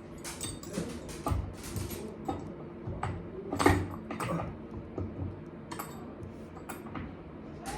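Irregular clicks, clinks and knocks of metal hardware and tools being handled, with one louder knock about three and a half seconds in.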